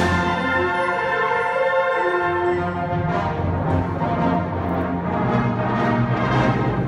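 Concert band of woodwinds and brass playing held chords; the low notes drop away for a couple of seconds about half a second in, then come back.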